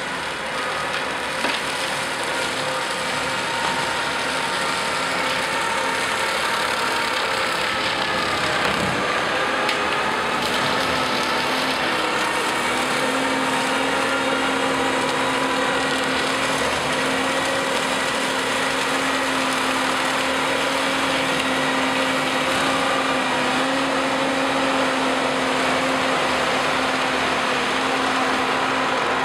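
Compact track loader's diesel engine running steadily at a constant speed, with a steady whine over it; the pitch dips and rises slightly about ten seconds in.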